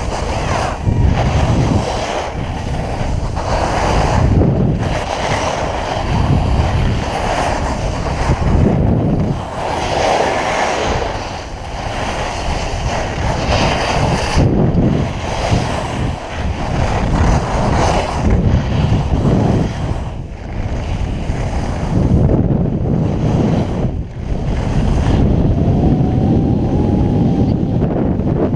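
Wind buffeting the action camera's microphone while skiing downhill, mixed with skis scraping and hissing over granular spring snow; the rush swells and eases every second or two through the turns.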